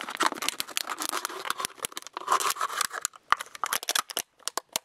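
Thin plastic water bottle crackling and clicking as a fixed-blade knife saws around it to cut the top off, a dense run of crackles that stops about four seconds in, with one last click near the end.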